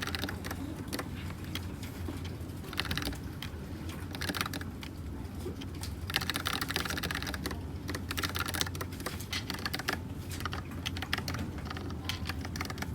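Typing on a Dugad x Thinkway mechanical keyboard with red linear switches: quick runs of keystrokes in irregular bursts, with a longer run in the middle.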